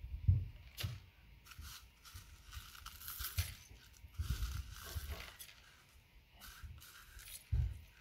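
Small gold-plated RJ45 connector pins dropped by the handful from a thin plastic tub into a glass jar, with scattered clicks and the crinkle of the plastic tub. Low rumbles of wind on the microphone come and go, strongest near the start, around the middle and near the end.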